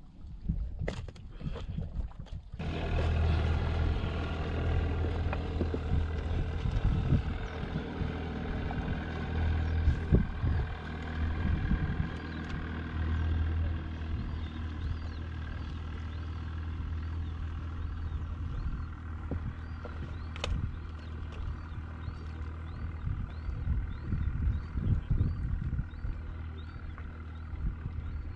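A steady, loud, low mechanical drone with a stack of steady tones, starting abruptly a couple of seconds in. In the second half a faint high chirp repeats about once a second.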